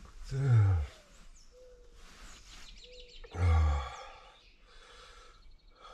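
A man's wordless vocal sounds, two drawn-out utterances falling in pitch, one at the start and one about three seconds later. Faint bird chirps between them.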